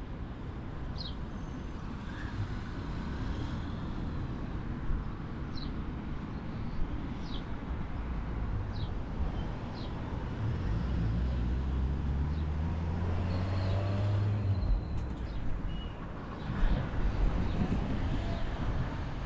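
City street traffic: a steady rumble, with a vehicle engine's low drone building about halfway through and easing off a few seconds later. Short, high bird chirps sound several times in the first half.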